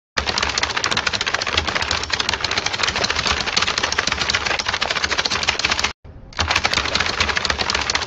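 AI-generated foley of a money counting machine rapidly riffling banknotes: a fast, dense run of flicking clicks. It breaks off briefly about six seconds in, then starts again.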